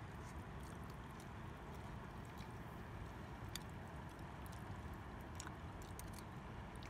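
A metal spoon making a few faint clicks and scrapes as it cuts into a soft stuffed tomato, with quiet chewing, over a steady low background rumble.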